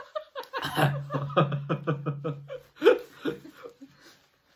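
A man and a woman laughing together, a run of quick, even ha-ha pulses lasting about two seconds, then a shorter burst of laughter.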